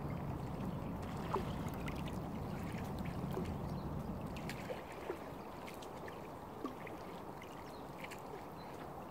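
Lake water lapping and trickling gently at the shore. A low rumble underneath drops away about halfway through, and faint scattered ticks sound on top.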